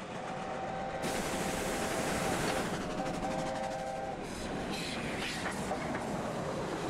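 Steam locomotive running, with steam hiss and wheels clattering on the rails. Its chime whistle sounds two long blasts in the first four seconds.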